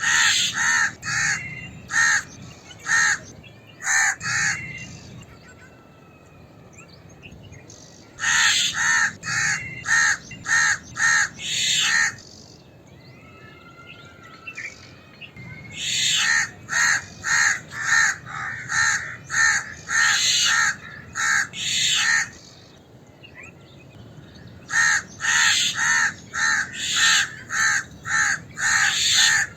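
Crow and myna alarm calls: harsh, rasping calls repeated about two a second in four bouts of several seconds each. Faint small chirps fill the short pauses between the bouts.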